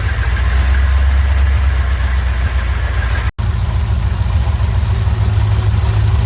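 1984 Corvette's 350 small-block V8 with Crossfire twin throttle-body injection idling steadily, freshly regasketed. The sound breaks off for an instant about three seconds in and carries on unchanged.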